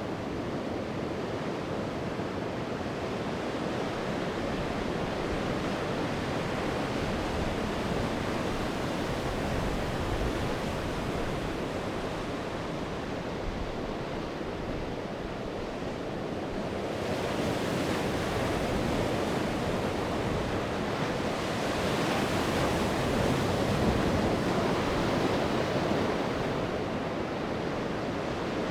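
Sea waves breaking and washing up the shore in a continuous surf wash, easing off near the middle and then swelling louder as a bigger wave breaks in the second half.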